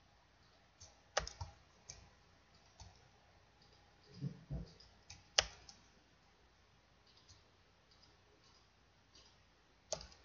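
Computer mouse clicks and keyboard key presses, scattered and irregular, with the sharpest click about five and a half seconds in and a couple of duller knocks just before it.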